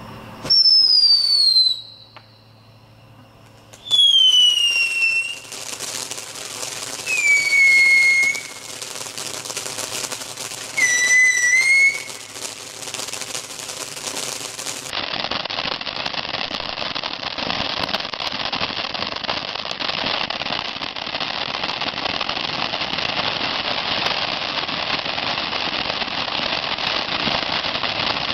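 Fireworks whistling: four loud whistles a few seconds apart, each lasting about a second and falling in pitch. About fifteen seconds in, a ground fountain firework takes over with a steady hiss as it sprays sparks.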